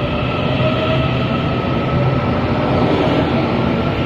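Taiwan Railways commuter electric multiple unit pulling out of a station past the platform: steady wheel and rail rumble with a traction-motor whine that rises slightly in pitch.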